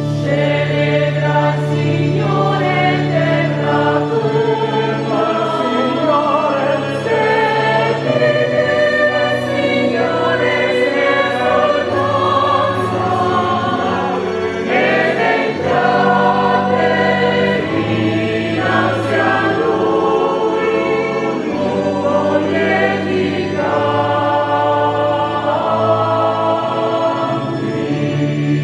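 Mixed church choir singing a hymn in parts, accompanied by an electronic keyboard holding sustained organ-like bass notes beneath the voices.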